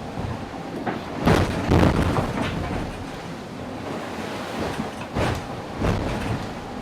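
Racing yacht pounding through heavy storm seas: a steady rush of wind and water, broken by loud crashes of waves hitting the hull, two close together just after a second in, another at two and a half seconds, and two more around five to six seconds.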